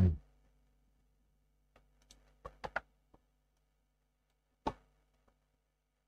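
A handful of short, sharp computer mouse and keyboard clicks: a quick cluster about two to three seconds in and a single louder one near five seconds.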